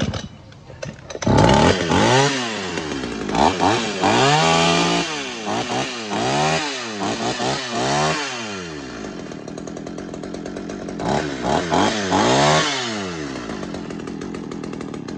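Shindaiwa two-stroke chainsaw of about 36 cc starting about a second in and being test-run, its engine note rising and falling with the throttle about once a second. It settles to a steady lower note for a while, is revved a few more times, then runs steadily.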